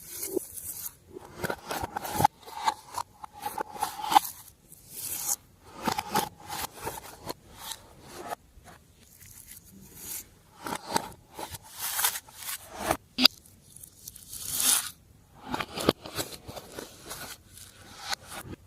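Glossy slime being squished and stretched by hand, giving irregular sticky crackles and squelches with a few sharp clicks and pops.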